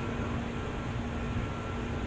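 JR 205 series 600 electric train running along the track: a steady low rumble of wheels on rail with a constant hum.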